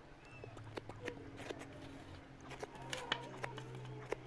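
Wet clicks and smacks of a man licking and sucking curry off his fingers and chewing, with a low steady hum underneath.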